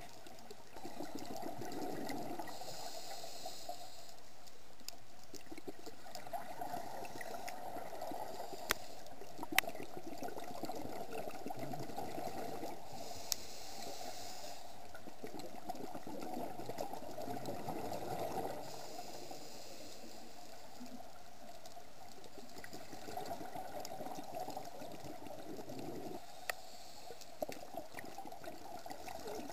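Muffled underwater sound of water moving around the camera, a gurgling wash that swells and fades every few seconds, with a few sharp clicks.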